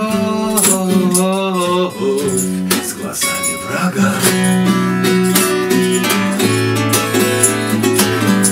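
Two acoustic guitars strumming and picking together in a folk song, with a man singing over them.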